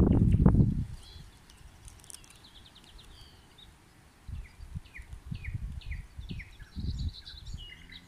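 A songbird sings a run of short down-slurred whistled notes repeated a few times a second, which the walkers take for a nightingale. Low rumbling thumps sound under it, loudest in the first second.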